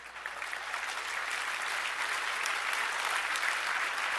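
A large audience applauding: the clapping starts up and swells over the first second, then keeps going steadily.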